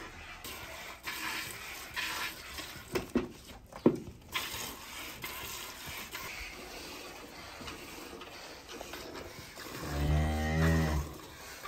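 Cow mooing once near the end, a low call about a second long. Before it, scattered scuffing noises and two sharp knocks about three and four seconds in, the second one loud.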